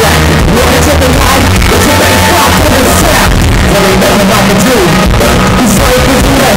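Live rock band playing loud through a club PA, with electric guitar, heavy bass and a sung vocal line, heard from within the crowd.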